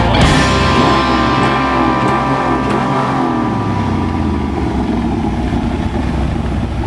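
Car engine running low with revs rising and falling, while the last chord of a rock track rings out and fades over the first few seconds.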